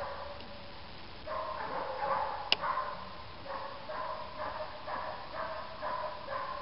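Puppy barking and yipping over and over in short calls, pausing briefly about a second in. A single sharp click sounds about two and a half seconds in.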